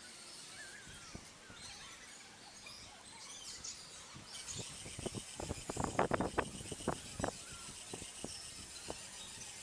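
Small electric motors of a LEGO Technic remote-control bridge-girder carrier start whining about halfway through, with a burst of irregular plastic clicks and ticks from its gears and wheels as the model moves. Birds chirp faintly before that.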